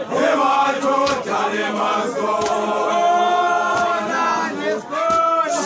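A group of people singing together, with long held notes about halfway through.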